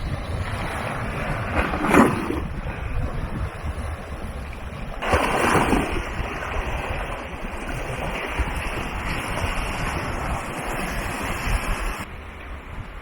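Wind buffeting the DJI Osmo Pocket's built-in microphone, with sea surf washing in behind it. Two louder swells come about two seconds and five seconds in, and the sound drops away somewhat near the end.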